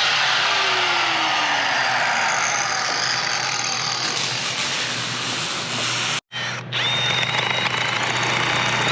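Compressed-air blow gun hissing steadily as it blows metal chips out of a freshly bored pin bore. The hiss breaks off sharply for a moment about six seconds in, then carries on with a faint high whine.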